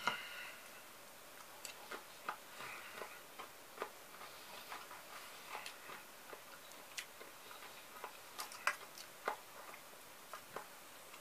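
A metal spoon clinking and scraping in an enamel pot of sliced cucumber salad, with chewing of the crisp cucumber: faint, irregular clicks.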